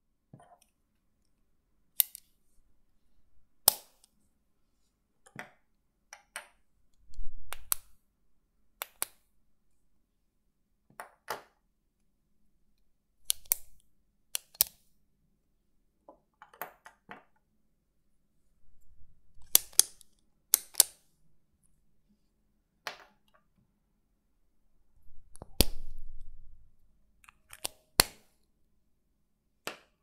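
Retractable ballpoint pens clicking: about twenty sharp, crisp clicks at irregular spacing, several coming in quick pairs. A soft low rumble sits under the clicks about seven seconds in and again about twenty-five seconds in.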